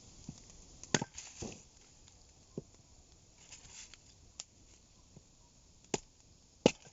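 Scattered sharp cracks and knocks of dry sticks and firewood as a campfire is built and starts to catch, about six over several seconds with the loudest near the start and near the end.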